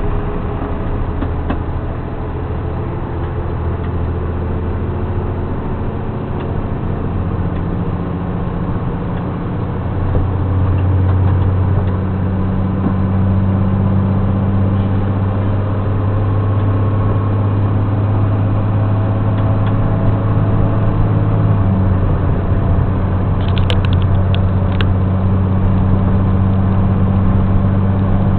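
School bus engine running, a steady low drone that changes pitch and grows louder about ten seconds in and shifts again about twenty-two seconds in. A few short clicks come near the end.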